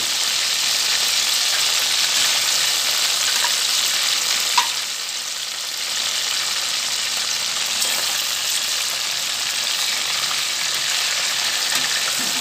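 Chicken wings frying in hot oil in a stainless steel pot: a steady sizzle with small crackles, and one sharp pop a little over four seconds in.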